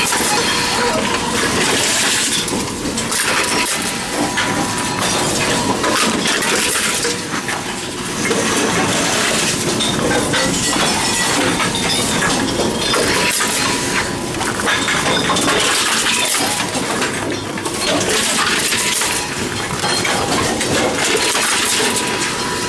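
Envipco CF-1500 reverse vending machines processing containers: a continuous, loud clatter and clinking of cans and bottles being handled and dropped into the bins, over a faint steady whine.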